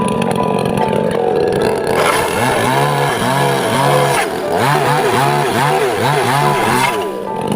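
Chainsaw engine revving up and down over and over, about twice a second, for several seconds.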